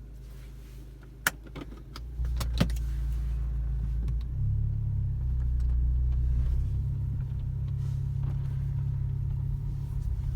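Skoda Octavia A7 with its engine running, a low steady hum that grows louder about two seconds in and again midway. Two sharp knocks come in the first three seconds, about a second and a half apart: the front-suspension knock that appears when turning on a flat surface.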